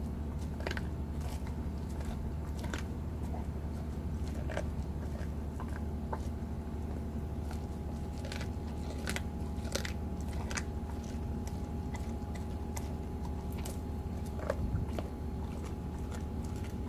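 Golden retriever gnawing and chewing a raw veal neck, with irregular sharp crunches and cracks as she bites into the meat and bone, over a steady low hum.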